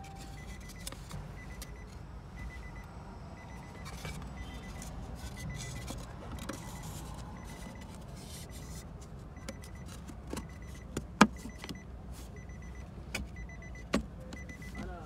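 Scattered clicks and knocks of small parts being handled, over a steady low hum and a faint high beep that repeats about twice a second. The sharpest click comes about eleven seconds in, and another near the end.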